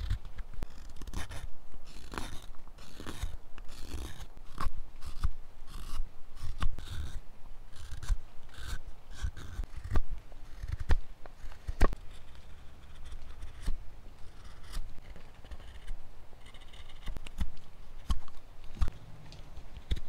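Straight-bladed carving knife slicing shavings off a piece of wood by hand, in an irregular series of short scraping cuts with several sharp clicks.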